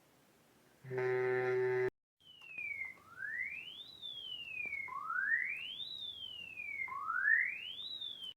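A fan-made Emergency Alert System alarm: a brief buzzy electronic tone about a second in, then a pure synthetic tone sweeping like a siren. It rises steeply for about a second and falls back for about a second, three times over.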